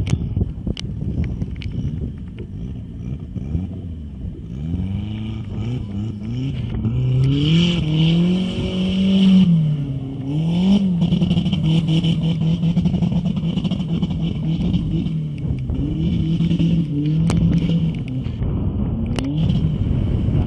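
Off-road buggy engine revving hard, its pitch rising and falling several times and then held high for several seconds, with a few sharp clicks.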